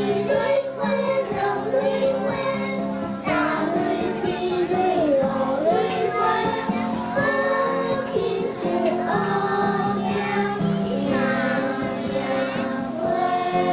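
A group of kindergarten children singing a Taiwanese folk song together over recorded backing music.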